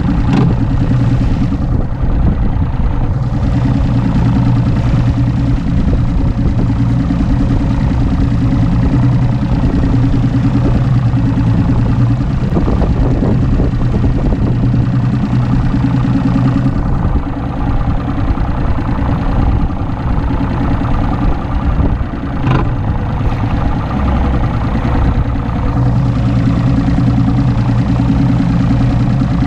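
Mercury Optimax 200 HP two-stroke V6 outboard running steadily at cruising speed, with rushing wind and water noise as the bass boat runs across choppy water. A few brief sharp knocks from the hull hitting waves.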